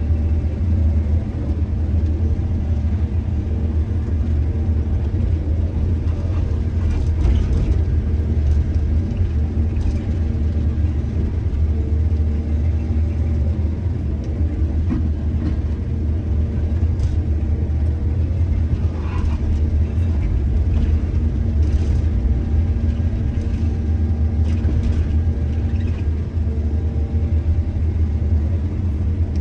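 Large excavator's diesel engine running steadily with a deep rumble, with a few faint knocks and scrapes scattered through it.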